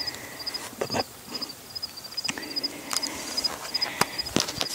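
An insect chirping in short high groups of two or three pulses, about two to three groups a second, with a few sharp knocks scattered through.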